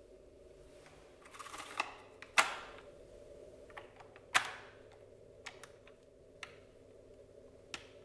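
Plastic parts of a Dyson DC24 upright vacuum's cleaner head being handled: a short rustle about a second in, then two loud, sharp clicks about two seconds apart, followed by a few fainter ticks.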